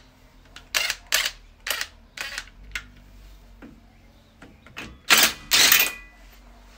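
Hand tools and metal brake parts at a car's front wheel hub being handled: a string of sharp separate clicks and knocks, then two short, louder bursts of noise about five seconds in.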